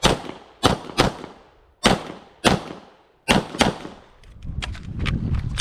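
9mm Glock 34 pistol fired rapidly, about seven shots, mostly in quick pairs. A low rustling noise with faint ticks follows in the last second or so.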